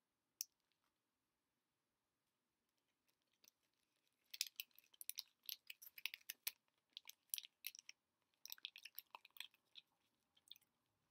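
A person chewing a piece of chocolate candy, heard as clusters of quick, faint wet clicks and crunches, mostly from about four seconds in and again near nine seconds.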